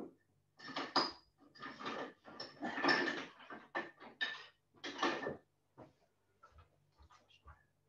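Kitchen utensils clattering as a drawer of them is rummaged through, in a run of short bursts lasting about five seconds with some metallic ringing, then a few small knocks. A faint low hum runs underneath.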